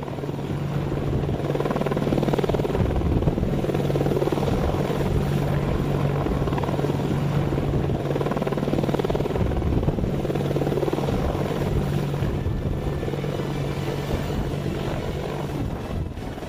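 AH-64E Apache attack helicopter flying, a steady rush of rotor and engine noise over a low, steady hum, fading in at the start.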